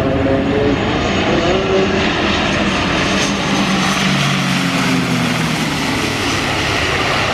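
Twin-engine turboprop transport aircraft flying low on landing approach, its engines and propellers running with a steady drone. The propeller tone slides lower in pitch in the first second or so, and a hiss builds toward the end as it passes.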